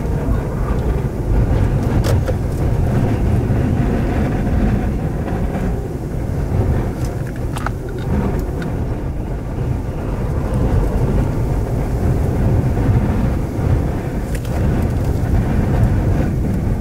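Strong wind from a nearby tornado buffeting the microphone: a steady, heavy low rumble that swells and eases, with a few faint ticks.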